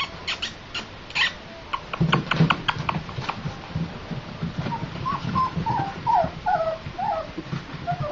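Flat-coated retriever puppies, nearly five weeks old, moving about with clicks, knocks and low thumps, then whimpering in a run of short high squeaks through the second half.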